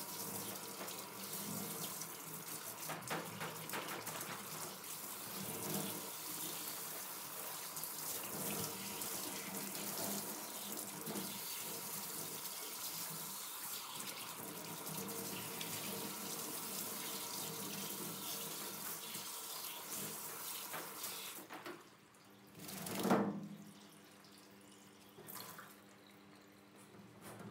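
Hand-held shower spray running over a poodle's coat and splashing into a stainless steel sink while the dog is rinsed. The water cuts off about three-quarters of the way through, and a single short, loud sound follows a second or so later.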